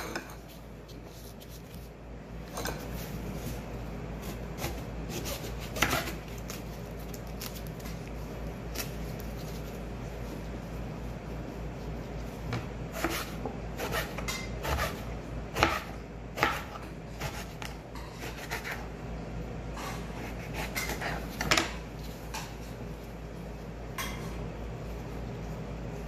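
Kitchen knife slicing through an eggplant and knocking on a cutting board: irregular sharp knocks every second or few, with some small handling clatter between them. A steady low hum runs underneath.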